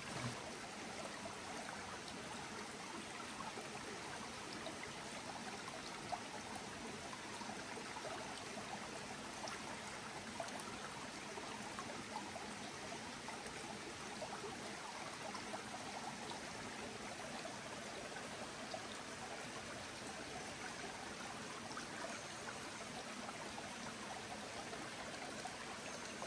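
Shallow forest stream trickling over rocks, a steady even rush of running water.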